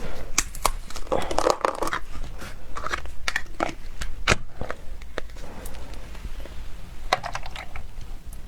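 Plastic food packaging crinkling and tearing as it is opened by hand, a run of sharp crackles with busier stretches about a second in and near the end.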